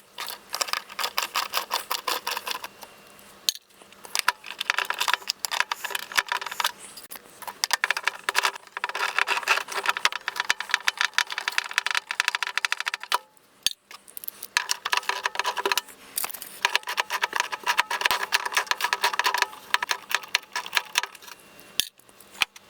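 Socket ratchet wrench clicking rapidly as 10mm nuts are spun off, in three long runs with brief pauses between them.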